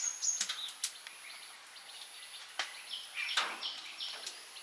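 Birds calling: short chirps and whistled notes, a few at a time, busiest from about three seconds in, over a thin steady high tone.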